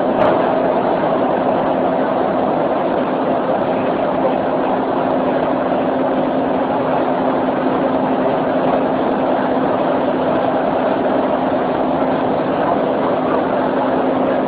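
Steady running noise of an electric commuter train heard from inside the carriage, with a constant hum under the rush. There is a single brief click just after the start.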